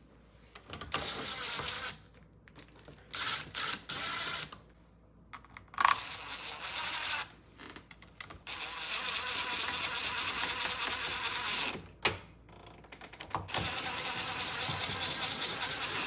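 DeWalt 20V XR cordless impact driver set to a very low torque, driving lock screws in about five short runs of rapid hammering, the longest about three and a half seconds.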